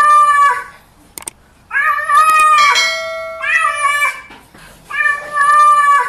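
A grey-and-white cat meowing three times in long, drawn-out calls. The middle call is the longest.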